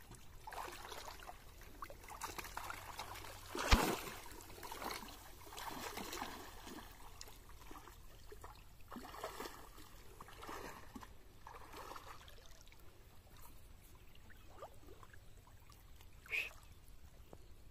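Shallow paddy water sloshing and trickling in short, irregular splashes, as of someone wading and handling things in the water. One sharp knock about four seconds in, and a brief higher-pitched sound near the end.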